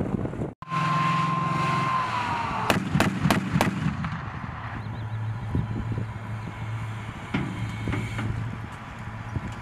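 M2 Bradley Fighting Vehicle firing a burst of four shots, about three a second, from its 25 mm chain gun over its running engine. A steady whine dips in pitch just before the burst, and afterwards the engine keeps running with one fainter bang.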